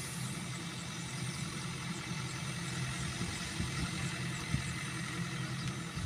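Yanmar AW70GV combine harvester's diesel engine running steadily, with a low hum.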